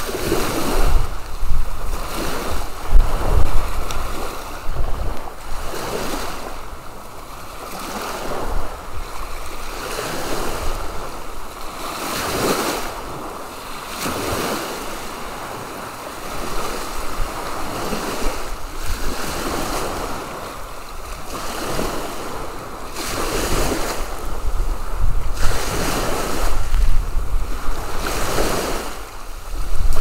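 Small waves breaking and washing up over a sandy beach, a rushing wash that swells and falls back every second or two. Wind buffets the microphone, strongest near the start and the end.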